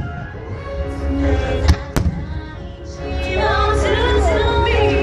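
Fireworks bursting over loud music: two sharp bangs close together about two seconds in. A singing voice comes into the music about three seconds in.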